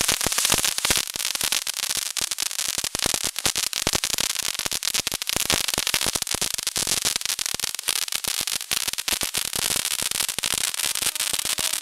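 Handheld firework fountain held aloft and spraying sparks, giving a dense, unbroken crackling hiss.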